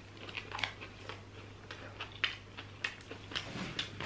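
A person biting into and chewing a breaded fish burger, with faint soft crunches at irregular intervals.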